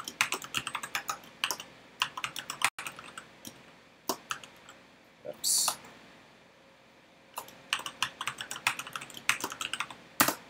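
Typing on a computer keyboard: a quick run of keystrokes, a pause of a few seconds, then a second run, ending with one louder click.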